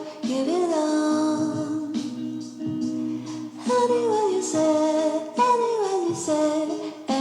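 A song: a woman singing a slow melody with gliding, held notes over instrumental accompaniment.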